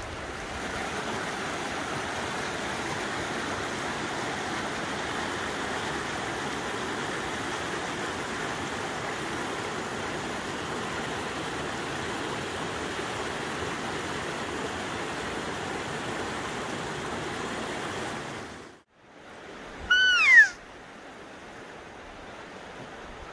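Steady rush of a fast-flowing, swollen creek, which cuts off suddenly. About a second later comes a single loud cry that falls in pitch over about half a second.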